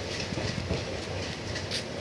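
A passenger train's coaches roll away over the rail joints, the wheels clacking irregularly over a steady low rumble.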